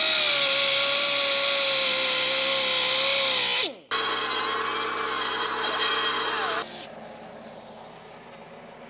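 Cut-off wheel cutting through the tack welds on a steel bar, a steady high whine with a hiss of grinding. It breaks off briefly a little before four seconds, then cuts again and stops suddenly about two-thirds of the way through, leaving only faint room tone.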